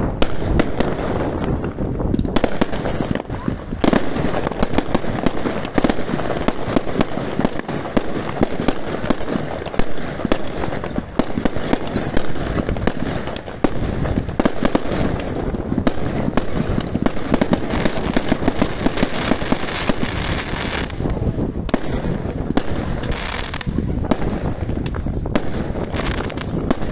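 Aerial fireworks bursting in quick succession: a dense, unbroken run of bangs and crackles, several a second.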